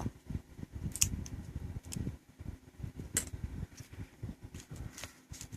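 Handling noise from a micro 5-pin cable and USB connectors being picked up and shown: a few small sharp clicks, roughly a second apart, over faint low rustling.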